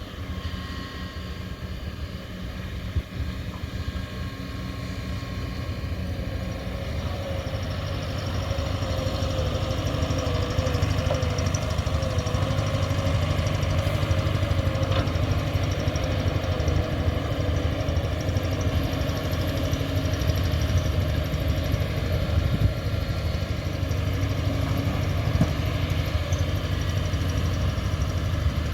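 Excavator's diesel engine running steadily, growing louder over the first several seconds as it works. A wavering whine rides over it through the middle stretch.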